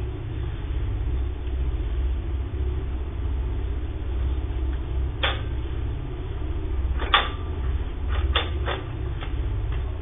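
Steady low hum and rumble as picked up by a security camera's microphone. About halfway through come a handful of sharp clicks or knocks: one, then a pair about two seconds later, then several in quick succession.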